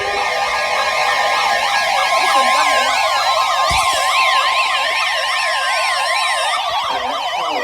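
Electronic emergency alert tones: several warbling siren-like tones sweeping rapidly up and down, layered over a steady tone that stops about a second before the end. A few slow falling tones cross them, and the whole sound cuts off suddenly at the end.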